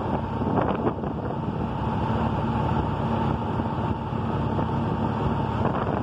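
Engine running with the electric radiator cooling fans on, a steady whir over a low hum. The fans are running because the AC pressure transducer is unplugged, which puts 5 volts on its signal wire.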